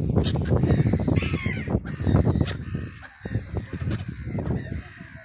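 A flock of black-headed gulls calling as they wheel close overhead, over a heavy low rumble of wind on the microphone that eases off in the last couple of seconds.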